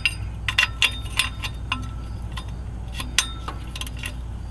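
Hand tools clinking on metal while exhaust manifold bolts are tightened: a series of irregular sharp clinks and clicks, some ringing briefly, over a steady low hum.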